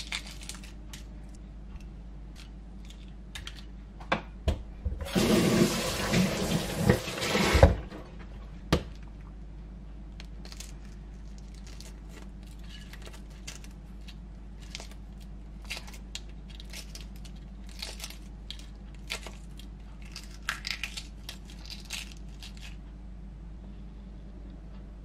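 Eggshells on cooked eggs cracking and being peeled off by hand, a scattered run of small crackles and clicks. A few seconds in, a tap runs for about three seconds as the hands are rinsed between eggs.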